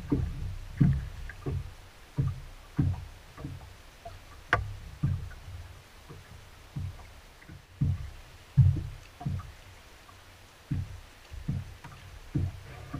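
Small waves slapping against the hull of a bass boat: a run of low, irregular thumps, about one or two a second.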